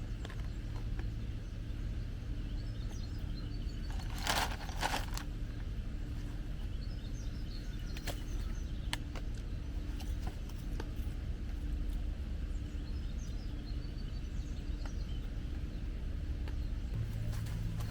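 Rain ambience: scattered drops tick on a tarp over a steady low hum, and a bird chirps a few times. Two louder knocks come about four seconds in.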